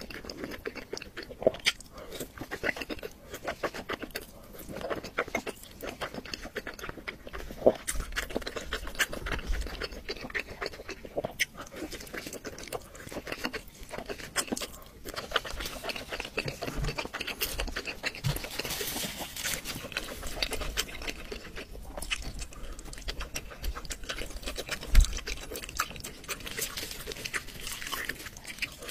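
Close-miked eating: chewing and mouth noises with dense small clicks, a few sharper knocks and one loud thump about 25 seconds in.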